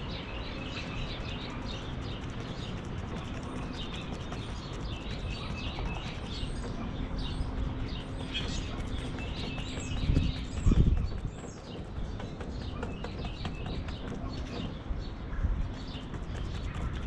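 Wild birds chirping and calling in short, repeated notes, over a faint steady low hum. About ten seconds in there is a brief low rumble.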